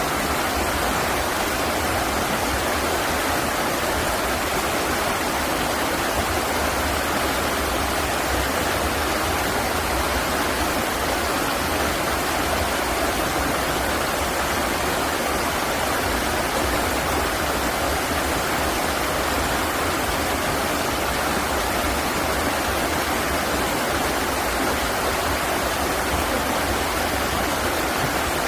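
River water flowing, a steady, even rush with no break or change.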